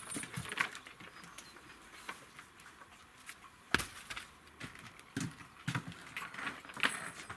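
Scattered knocks, scuffs and clicks of someone moving about and handling objects in a wooden shed, with one sharp knock about four seconds in and a few dull thuds a little later.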